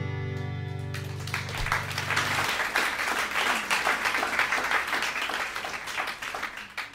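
Audience applauding, starting about a second in over the song's last held chord, which cuts off soon after; the applause fades out near the end.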